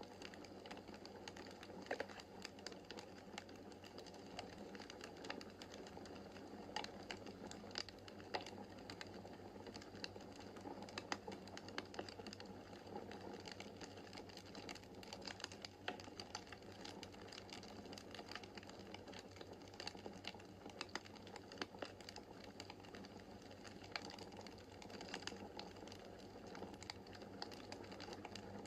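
Wood fire in a fireplace crackling: irregular small pops and snaps over a faint steady hiss.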